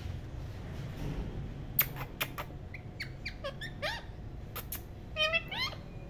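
Caged rose-ringed parakeets giving a run of short squeaky chirps whose pitch slides up and down, mixed with sharp clicks, with a louder call about five seconds in.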